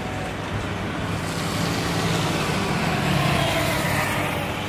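Airbus A330-300's twin GE CF6-80E1 turbofans at takeoff thrust as the airliner rolls down the runway: a steady jet noise that grows louder to about three seconds in as the aircraft passes, with a sweeping swish in the hiss.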